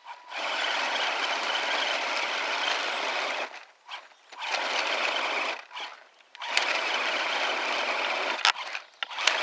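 Electric motor and geared drivetrain of a 1/10-scale RC crawler truck whirring in three bursts, stopping and starting, with a few sharp clicks near the end.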